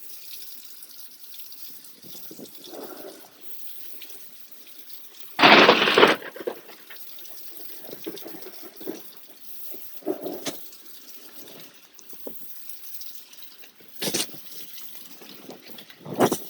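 Steady rain falling, broken by several brief, loud noisy bursts, the loudest about five and a half seconds in.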